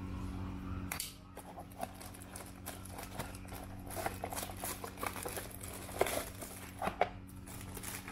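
Packaging being rummaged through by hand: crinkling plastic with scattered small clicks and knocks, over a steady low hum.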